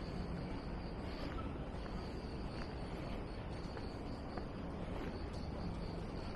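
Outdoor city background while walking: a steady low hum of distant traffic with a thin, steady high tone over it, and a few faint footsteps on a paved path.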